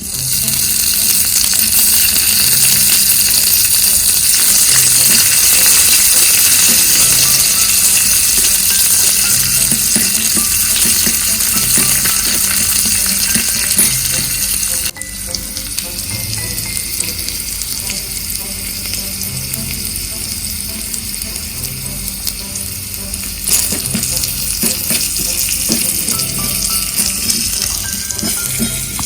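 Food sizzling and frying in hot oil in a miniature cooking pan, with light stirring clicks. The sizzle drops in level suddenly about halfway through, then carries on more quietly.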